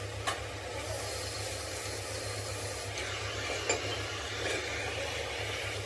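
Steady low machine hum under a constant hiss, with two short sharp knocks, one just after the start and a louder one a little past halfway.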